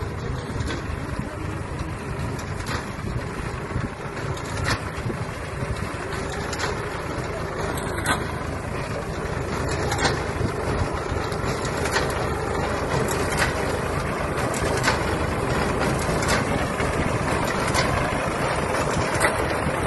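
Tractor engine running steadily while driving a tractor-mounted reaper binder that is cutting wheat, with sharp clicks every second or two over the drone.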